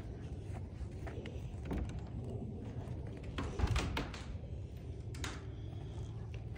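A shed's double door being unlatched and swung open: a few metal clicks and knocks, with the loudest thunk just past the middle, over a steady low rumble.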